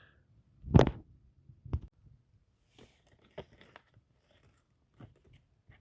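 Plastic clicks and handling noises as the wiring connectors are unplugged from a car's power seat switch and plugged into the replacement switch. The loudest click comes just under a second in, followed by a second one and then several smaller ticks and rustles.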